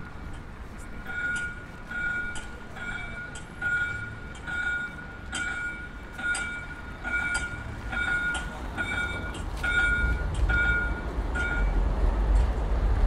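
Electronic warning beeper sounding about twice a second, a steady high beep repeated evenly, stopping near the end. Under it runs street traffic rumble that grows louder in the last few seconds as a vehicle passes close.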